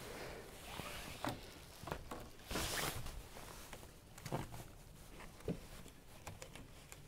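Faint rustling, scraping and small knocks of hands working a string line around a shed's roof beam, brushing dry climbing-plant stems as the line is pulled tight. A short, louder rustle comes about two and a half seconds in.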